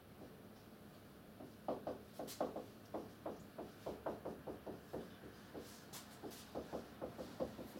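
Marker writing on a whiteboard: a quick, uneven run of short taps and strokes, starting about a second and a half in.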